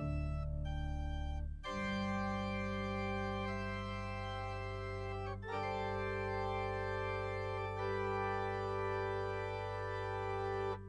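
Organ music with slow, sustained full chords that change a few times, ending on a long held final chord released just at the end; the closing voluntary after the dismissal of the service.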